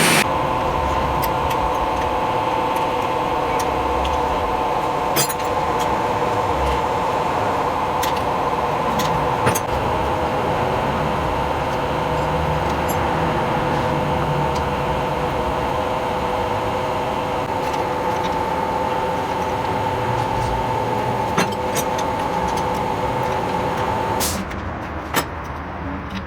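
A machine-shop machine running steadily with a constant high whine over a rough hiss, a few sharp clicks on top; it shuts down near the end.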